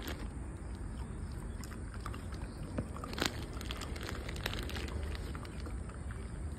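Dog chewing and crunching a treat, with a few sharp crunches scattered through, the loudest about three seconds in, over a steady low rumble.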